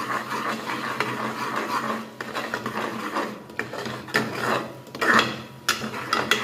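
Steel spoon scraping and stirring a thick onion-tomato masala in an aluminium pressure cooker, working in the salt, with several sharper knocks of the spoon against the pot in the second half.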